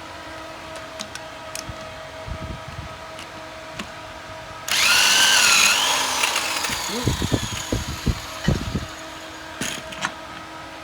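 A power tool runs in one loud burst of about a second and a half, starting suddenly near the middle, its whine dipping and rising before it fades. A few low knocks follow, over a faint steady hum.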